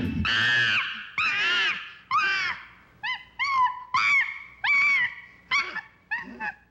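A series of about ten high-pitched animal calls, each rising and then falling in pitch, coming in quick succession and growing shorter and fainter toward the end.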